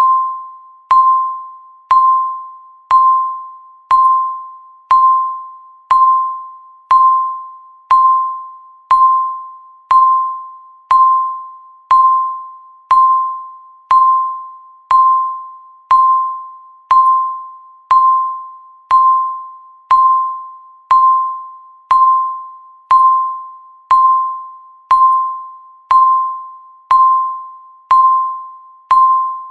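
Electronic countdown-timer beep: a single chime-like tone struck once a second, each one fading out before the next, marking the seconds ticking down.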